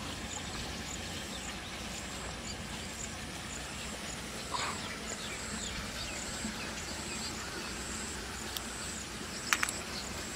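Rural outdoor ambience: high-pitched insect chirping in an even pulse, with birds calling briefly around the middle and two sharp clicks near the end.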